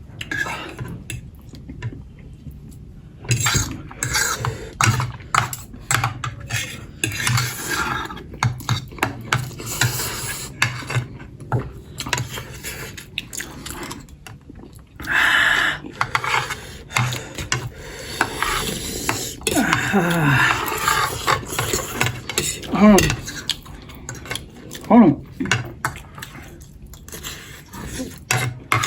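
Cutlery clinking and scraping on plates and bowls during a meal, with repeated short clicks and some eating noise. About two-thirds of the way in come a few short sliding pitched sounds.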